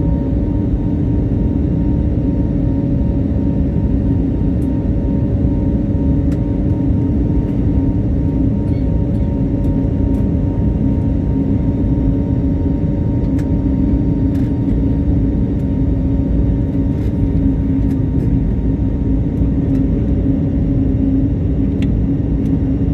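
Airliner engines running steadily after take-off: a constant loud rumble with a steady drone held at one pitch.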